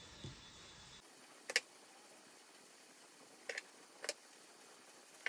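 Kitchen scissors snipping silkworm larvae: a few short, sharp snips a second or two apart, some of them in quick pairs.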